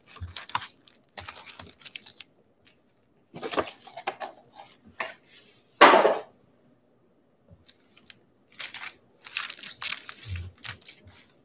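Sealed Bowman baseball card packs in crimped plastic wrappers crinkling and rustling as they are handled and stacked on a wooden table, in short scattered bursts with one louder crinkle about six seconds in. A few soft thumps near the end as the stacks are pushed square.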